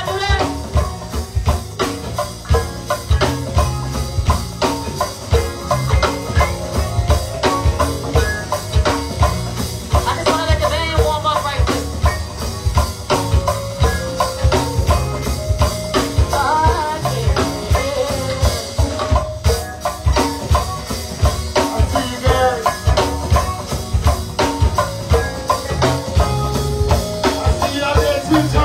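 Live go-go band playing a steady bounce beat on drum kit and congas over a strong bass line, with voices singing over it.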